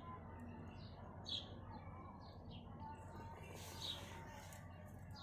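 A bird chirping: short, high chirps repeated irregularly, the loudest about a second and a half in and again near four seconds. A steady low hum runs underneath.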